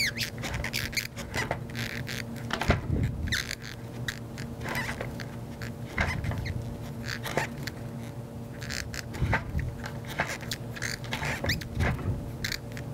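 Marker pen scratching and squeaking in short, irregular strokes across the shell of a bowling ball as a line is drawn around its track. The ball is turned by hand between strokes, and a faint steady hum sits underneath.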